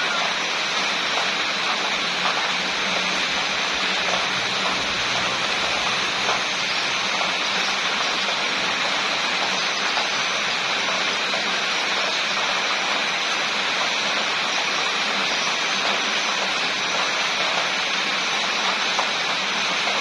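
Steady rain falling, a dense, even hiss that keeps up without a break.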